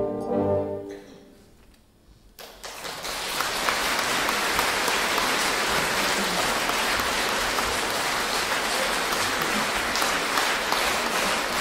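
The orchestra's last chord dies away into a moment of silence, then audience applause breaks out suddenly about two and a half seconds in and continues steadily.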